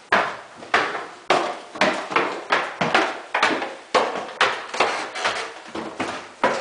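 Footsteps climbing wooden stairs: a run of hard knocks, about two a second, some landing close together.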